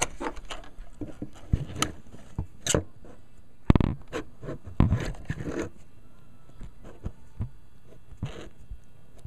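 Handling noise from the camera being moved and set in place: irregular scrapes, rubs and a few sharp knocks, the loudest about four and five seconds in, settling down after about six seconds.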